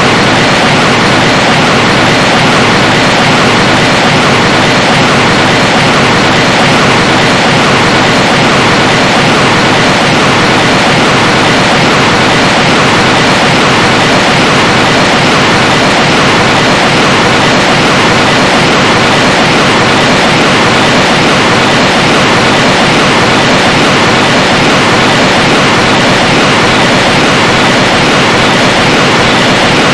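A loud, steady rushing noise that does not change.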